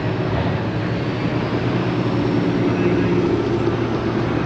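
A car engine running with a steady low tone, growing a little louder through the middle.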